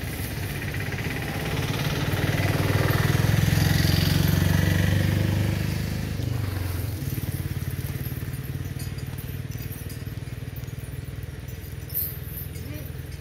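A motor vehicle engine running nearby with a steady low hum; it grows louder for a few seconds, as if drawing close, then eases back to a quieter steady run.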